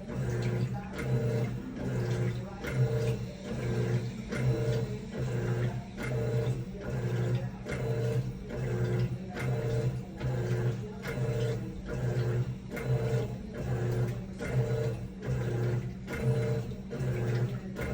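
Electrolux 10.5 kg top-loading washing machine agitating. Its motor hums in even pulses, a little over once a second, as it drives the agitator back and forth.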